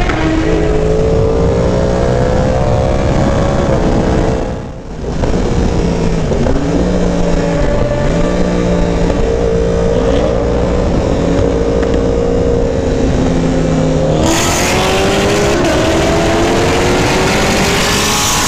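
Sportbike engine running hard at speed over wind rush, climbing in pitch as it accelerates. About five seconds in it briefly drops away, then holds a high steady note; near the end a fresh climb in pitch begins as the bike pulls through the revs again.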